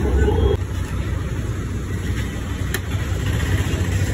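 Road traffic noise: a steady rumble of passing vehicles, with a steady tone that stops about half a second in.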